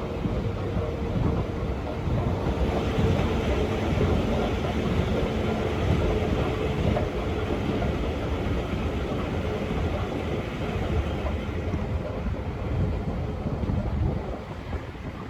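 Train running: a steady rumble with a faint hum that swells about two seconds in and falls away near the end.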